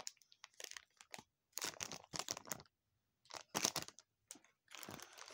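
Plastic blind-bag packaging being torn open and handled by hand, crinkling and rustling in short irregular bursts with brief pauses between.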